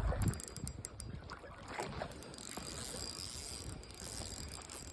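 Fishing reel being cranked to reel in a hooked fish, a faint run of clicks and whirring.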